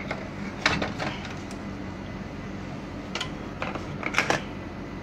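A few sharp clicks and knocks from handling a clock circuit board and an analog multimeter, with a quick cluster of clicks near the end as the meter's rotary range switch is turned. A steady low hum runs underneath.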